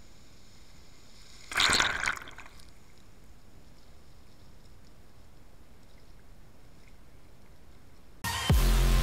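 Surf water splashes loudly over the shoreline once, about a second and a half in, against a steady faint hiss. Near the end, music starts abruptly with a deep bass hit.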